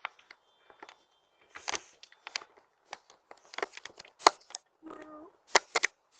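Irregular sharp clicks and taps of hands handling small hard objects, with a short low pitched sound, like a brief hum, about five seconds in.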